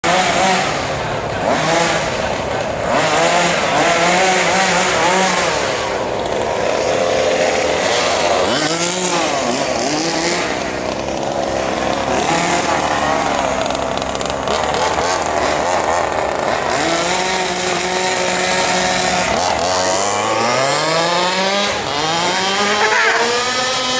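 Remote-control cars running and revving, their motors' pitch rising and falling again and again, with a long rising whine near the end.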